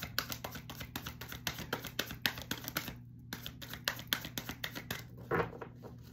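Tarot cards being shuffled by hand: a fast run of card flicks and taps, pausing briefly about three seconds in, then stopping near the end.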